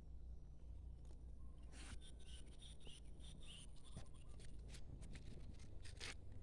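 Faint rustling and scattered small clicks and scrapes, the handling noise of a phone moving among ferns and grass leaves, over a low steady rumble.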